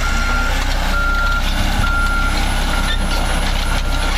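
Caterpillar D6 bulldozer's backup alarm beeping: one high tone, about half a second long, repeating roughly once a second over the steady sound of its diesel engine running.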